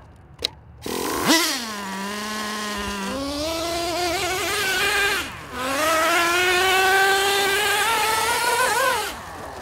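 Traxxas Nitro Slash 2WD RC truck's small nitro engine revving up sharply about a second in and running at high, high-pitched revs. It drops off briefly around the middle, then climbs steadily again before falling away near the end.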